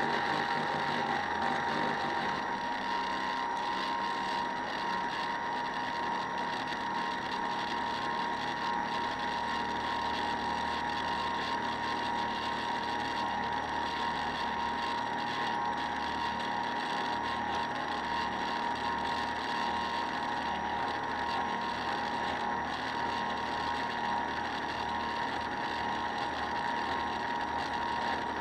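Motor of a model RV Calypso boat running steadily under way, with an even high whine that holds one pitch.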